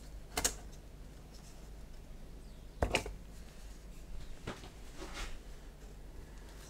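A few light clicks and taps as a brass etched template and a pointed scriber are handled against a sheet of plastic card on a cutting mat, the loudest about three seconds in, with faint scratching from the scriber between them.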